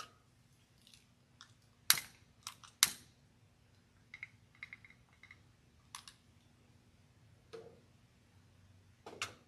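Quiet handling sounds as a white pillar candle is lit by hand: scattered sharp clicks and light knocks, the two loudest about two and three seconds in, and a short run of faint ticks just after four seconds.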